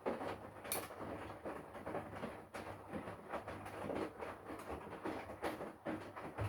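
Front-loading washing machine mid-wash: water and laundry slosh and tumble in the turning drum, with irregular soft knocks and clicks over a steady low motor hum.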